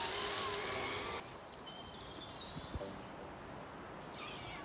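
An RC crawler's electric motor whining, wavering in pitch, over the crunch of tyres on dry leaves, cut off abruptly about a second in. Then quiet woodland with birds chirping briefly and a single knock.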